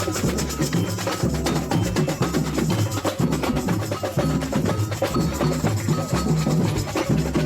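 Samba music with a steady, dense percussion beat, sharp wood-block-like and bell-like strikes over a repeating bass pattern.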